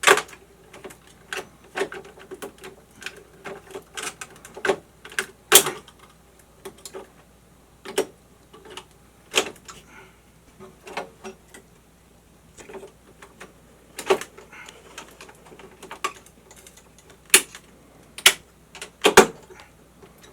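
Circuit breakers being pushed and snapped into the empty slots of an electrical subpanel: irregular plastic clicks and knocks, with a few sharper snaps.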